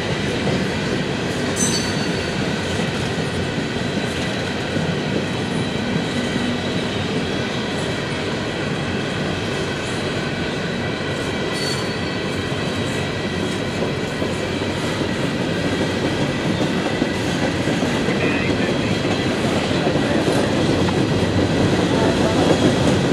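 Empty coal cars of a freight train rolling past: a steady rumble of steel wheels on rail with clickety-clack over the rail joints, growing a little louder near the end.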